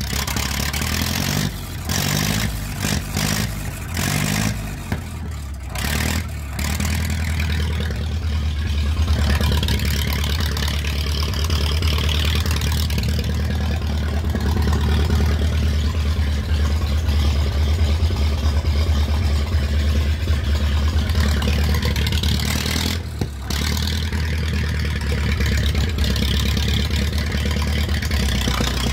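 Vintage Ferguson tractor's engine running steadily as the tractor is driven, with a few brief dips in the first few seconds.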